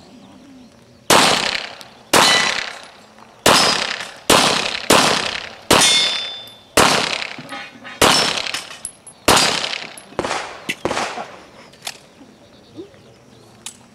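Handgun shots fired one at a time, about ten loud reports roughly a second apart, each with a ringing tail, then a few fainter shots near the end.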